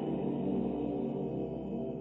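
Men's choir singing Orthodox memorial chant a cappella, holding steady chords with a deep bass underneath.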